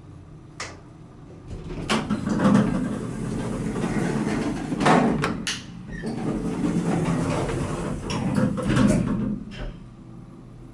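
Traction elevator's automatic sliding doors closing after a call button is pressed, with a click, several knocks and a steady low rumble from about two seconds in that fades near the end.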